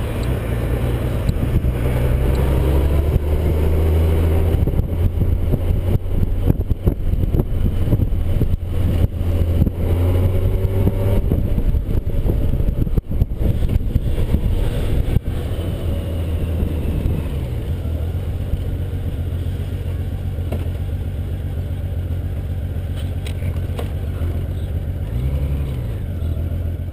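Motorcycle engine running on the move, with wind rumbling over the microphone through the middle stretch. It then settles to a lower, steadier running as the bike slows, with a short rev and drop near the end.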